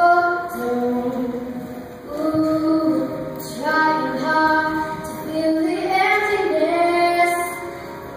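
A young girl singing a slow song solo into a microphone, holding long notes.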